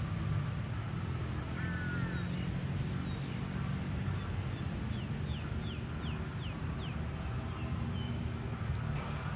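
Birds calling over a steady low background rumble: a short two-note call about a second and a half in, then a run of about six quick falling notes a few seconds later and a single brief high note near the end.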